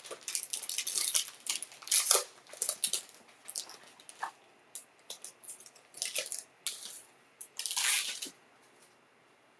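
Crinkling and crackling of packaging as a sealed trading-card box is opened by hand, in quick irregular crackles, with a longer rustle near the end before it goes quiet.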